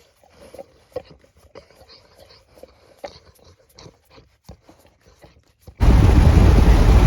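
A dog licking and lapping up whipped cream, soft irregular wet smacks and clicks. Near the end, loud wind buffeting the microphone cuts in.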